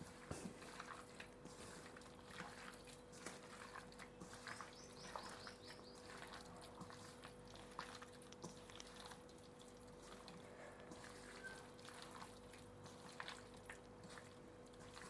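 Faint wet squelching and soft clicks of a bare hand mixing raw chicken pieces into an egg-and-spice marinade in a metal bowl, over a steady low hum.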